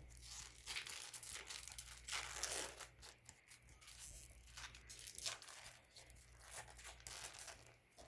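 2018-19 Upper Deck SP hockey card pack wrapper being torn open by hand: a series of uneven ripping and crinkling sounds, loudest about two seconds in and again just past the middle.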